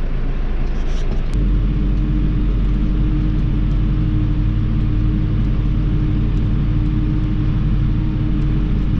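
Tractor engine running steadily, heard from inside the cab while the sprayer it drives pumps out its water. A steady higher hum joins about a second and a half in.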